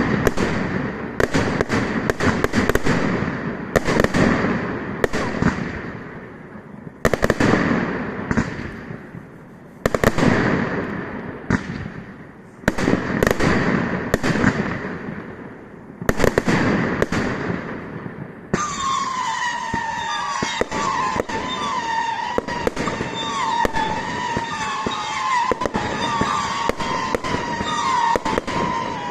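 Fireworks display: a string of loud bangs, each echoing away, then from about two-thirds of the way through a steadier dense crackling with a wavering whistle-like tone.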